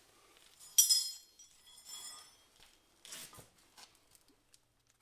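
Metal striking metal: a sharp, bright clink about a second in that rings briefly, a lighter ringing clink about a second later, then a short scrape, as tools or parts are handled at a workbench.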